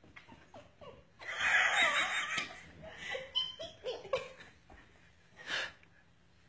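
A person laughing, with a long breathy laugh starting about a second in, then shorter bursts.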